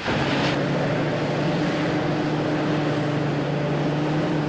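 Heavy machinery engine running steadily, a constant drone with an even, unchanging pitch.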